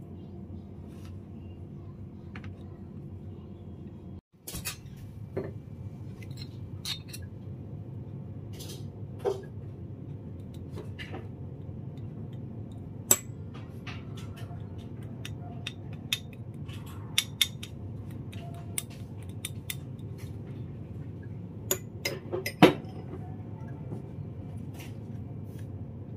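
Steel spoon clinking against a small ceramic bowl while sauce is spooned and stirred: scattered sharp clinks, the loudest about halfway through and near the end, over a steady low background hum.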